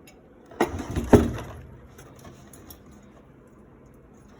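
Two knocks about half a second apart, then a few light clicks: parts of a torn-down portable ice maker being handled and set down.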